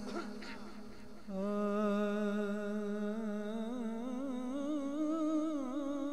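A man's voice singing a naat into a microphone: after a short quieter moment, about a second in he holds one long note with a wavering vibrato that climbs a little and falls back.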